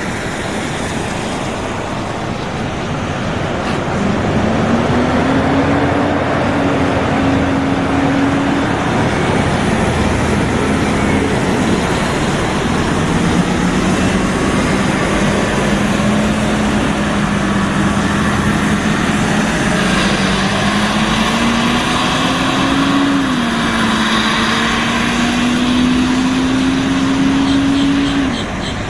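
Diesel transit bus pulling away and accelerating, loud. Its engine note climbs, drops back twice as the automatic transmission shifts up, and climbs again.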